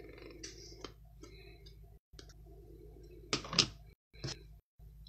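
Screw-top lid of a plastic ink jar being twisted off, with small plastic clicks and a couple of sharp knocks about three and a half seconds in.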